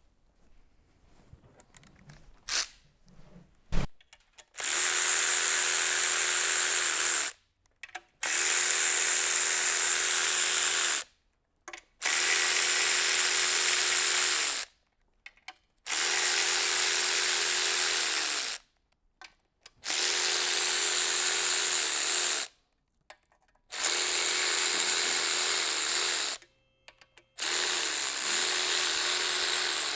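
Handheld power tool running a bolt in seven runs of about three seconds each, about every four seconds, during an engine teardown. A couple of sharp clicks come before the first run.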